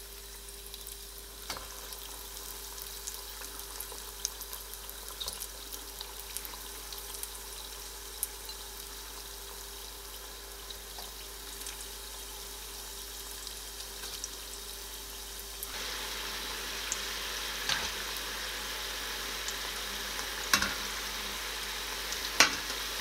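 Breaded potato-and-cheese balls deep-frying in a small saucepan of hot oil: a steady sizzle with scattered crackles, growing louder about two-thirds of the way through. A few sharp clicks near the end as a wire skimmer is moved among them.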